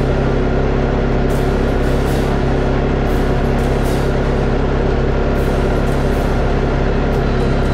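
Tracker Off Road 700 ATV's engine running at a steady speed while riding, an unchanging drone.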